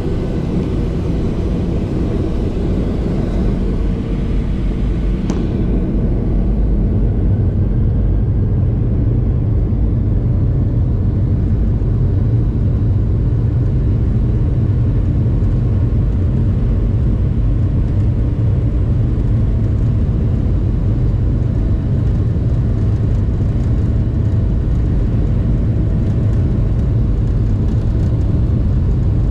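Jet airliner accelerating on its takeoff roll, heard from inside the cabin: the turbofan engines at takeoff power make a loud, steady deep rumble that grows a little louder about six seconds in as the plane gathers speed.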